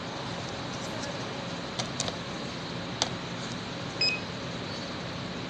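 A digital coffee scale gives a single short electronic beep about four seconds in, after a few light clicks and knocks of glassware being handled. A steady room hum runs underneath.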